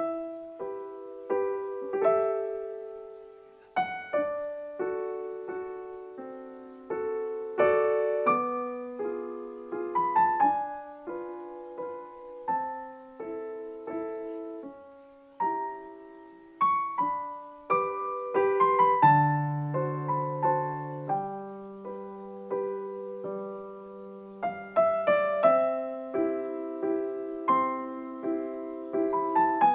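Background piano music: a gentle melody of separate struck notes, each fading after it sounds.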